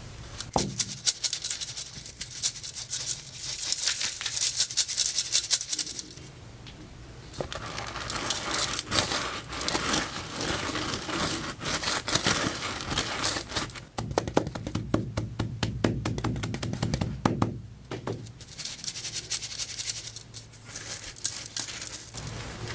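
Colourful chalk being crushed into powder: dense crunching and crumbling in several bursts of a few seconds each, with short pauses between them.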